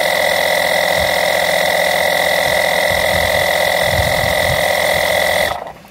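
Peztio cordless portable tire inflator's compressor running steadily with a high, buzzing whine while pumping up a car tire, then cutting off suddenly near the end.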